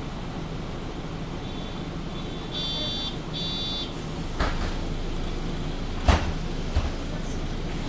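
MAN Lion's City G articulated bus idling with a steady low hum. A two-part electronic door warning beep sounds about three seconds in, then the doors close with three sharp knocks, the loudest about six seconds in.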